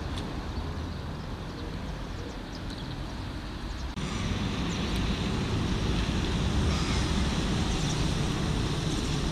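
Low steady rumble of a vehicle in street traffic, with an abrupt step up in loudness about four seconds in.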